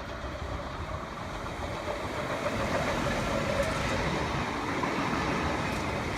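V set double-deck electric intercity train running past on the rails with a steady rumble and hum, growing louder about two seconds in.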